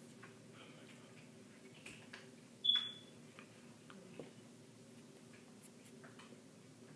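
A single short, high electronic beep about three seconds in, over faint scattered clicks and a low steady hum.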